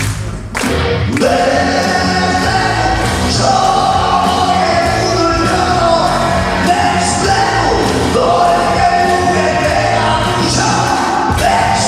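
A singer belting a melody live over a loud rock-style band backing with a steady drum beat, echoing in a large hall; the music briefly drops away just after the start, then comes back in full.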